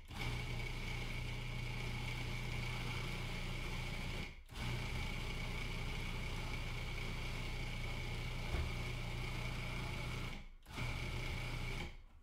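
Electric food processor motor running, blending an oat, hemp-heart and spice mixture: a steady hum with a high whine, pulsed, stopping briefly about four and a half seconds in and again about ten and a half seconds in, and cutting out near the end.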